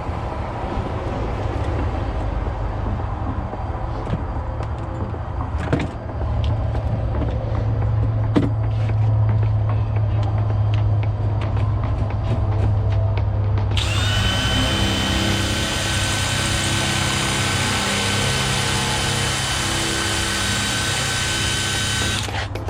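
Electric drill running steadily for about eight seconds with a constant whine. It starts suddenly about fourteen seconds in and cuts off just before the end, over a low steady hum.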